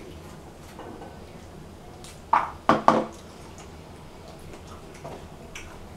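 Metal spoon knocking and scraping against a plate and pomegranate rind while seeds are scooped out. A quick cluster of three louder clatters comes a little over two seconds in, and small faint ticks are heard otherwise.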